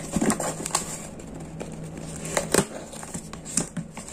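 Rustling and crackling of a mailed parcel's packaging being opened, with irregular sharp crinkles and taps, over a faint steady low hum.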